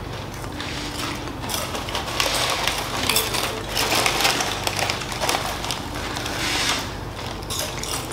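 Crisp chips being crunched and handled as several people eat, with spoons clicking and scraping in small bowls. It is a dense crackly clatter, busiest in the middle.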